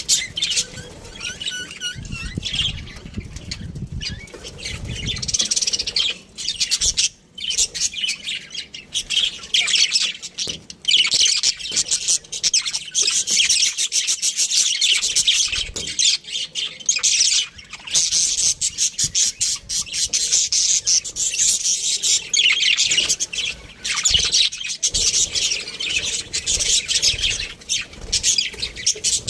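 Budgerigars chattering and chirping in a continuous, rapid warble, with brief pauses, and some low thumps early on.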